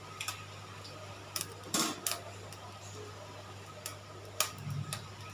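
A few light knocks and clinks of kitchen utensils against cookware, in two small clusters, over a steady low hum.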